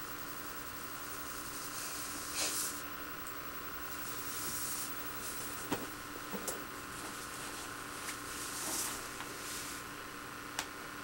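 Quiet home-video recording noise: steady hiss with a constant electrical hum. A few short breathy swells of hiss and some faint light taps come and go over it.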